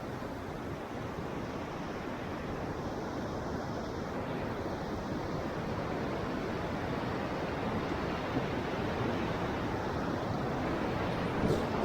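Steady rushing of river water, growing slowly louder.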